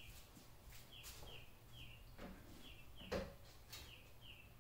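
Faint bird chirps: short falling notes repeated in twos and threes, over a low steady hum, with a soft knock about three seconds in.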